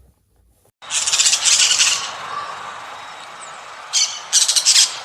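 Harsh, squawking animal calls: a loud rasping burst about a second in, a quieter rough stretch, then more bursts near the end.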